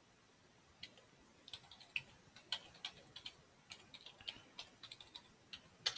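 Typing on a computer keyboard: a faint, irregular run of key clicks that starts about a second in, with the sharpest click near the end.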